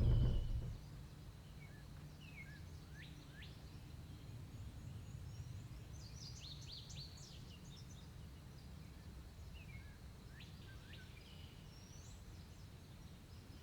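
A vehicle engine cuts off within the first second, leaving faint woodland ambience with a low hum and scattered short, high bird calls, some sweeping downward.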